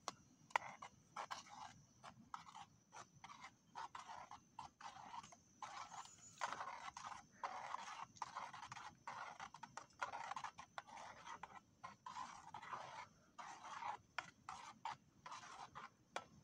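Faint, irregular scraping and light clinks of a metal spoon stirring soup in an aluminium pot.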